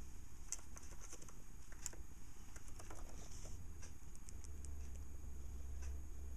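Budgerigars making soft scattered clicks and ticks, several in quick succession around the middle, over a faint low rumble.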